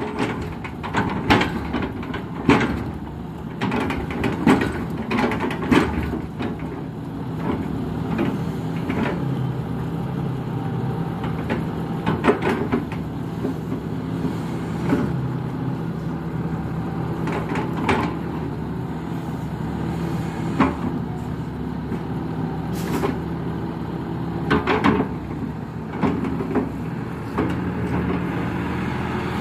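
Kato HD512 crawler excavator's diesel engine running steadily under load as it digs pond mud and piles it onto the bank, with frequent clanks and knocks from the bucket and arm.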